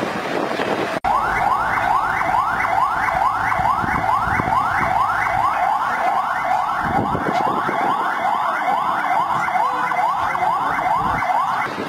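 Electronic siren sounding a fast yelp: short rising sweeps repeating about three times a second. It starts abruptly about a second in and stops abruptly just before the end.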